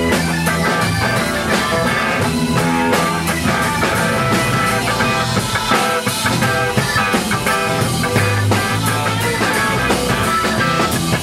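Rock band playing live: electric guitar over a drum kit.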